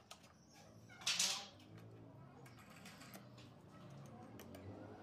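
Handling noises from adjusting a wooden hold-down clamp on a table saw sled: a short rasp about a second in, then a few faint clicks.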